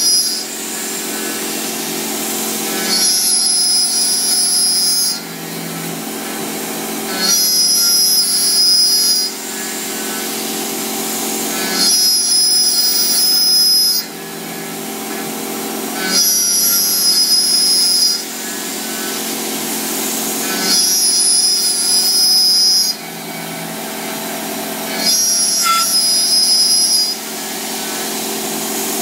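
Milling machine cutting a round metal workpiece. A high-pitched cutting whine comes for about two seconds at a time and repeats about every four seconds, with a quieter steady spindle hum in between.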